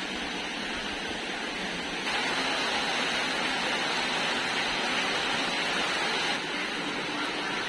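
Steady rushing noise. It gets a little louder from about two seconds in until about six seconds in.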